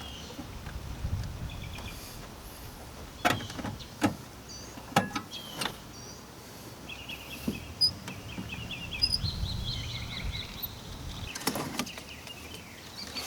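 Scattered sharp plastic clicks and knocks as an HID headlight bulb and its connector are worked loose and twisted out of the back of a car's headlight housing. Birds chirp in the background.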